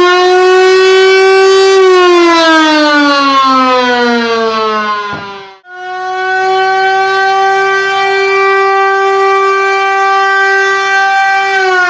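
A siren wailing loudly: a steady tone that slides down in pitch, breaks off abruptly about halfway, comes straight back at a steady pitch and starts sliding down again near the end.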